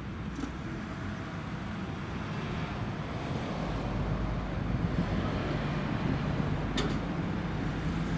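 Low rumble of electric trains on the tracks, with some wind on the microphone. About halfway through it grows louder and a faint steady hum comes in as a Hamburg S-Bahn class 490 electric multiple unit approaches. There is a single sharp tick near the end.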